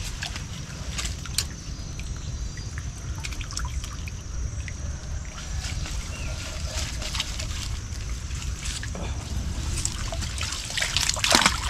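Water trickling and dripping, with scattered small clicks and splashes and a louder splash near the end.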